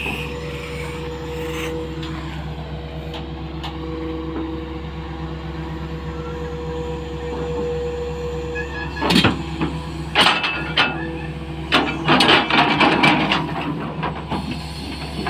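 Tata Hitachi 220 LC crawler excavator running steadily with a low drone and several constant tones. From about nine seconds in, its bucket scrapes and knocks against the hard soil of the pit wall while digging, in several loud clusters.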